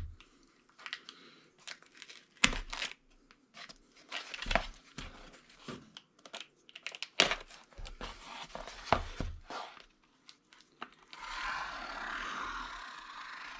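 A cardboard comic mailer being handled and opened: scattered knocks and paper-and-cardboard rustling, then, about eleven seconds in, a steady tearing hiss as the packing tape is cut open.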